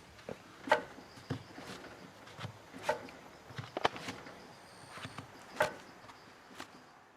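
Sharp metallic clanks with a short ring from a Suzuki Jimny JB23's differential as a jacked-up wheel is turned hard by hand against the locked opposite wheel: the ring gear and drive pinion striking each other through their backlash, which the owner suspects may be excessive. Three clear clanks about every two and a half seconds, with softer knocks between.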